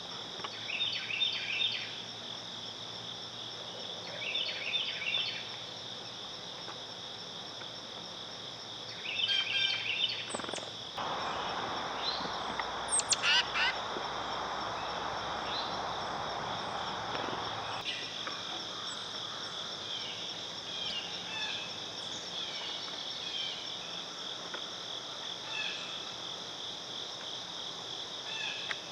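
Steady, high chorus of crickets and other insects, with songbirds chirping in short clusters over it a few times. A patch of even hiss starts and stops abruptly near the middle.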